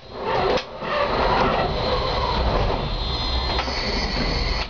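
Konstal 105Na tram standing at a stop, heard from the driver's cab. A dense mechanical whirring and rattling fills the first three seconds. A steady high electrical whine drops out at the start and returns near the end.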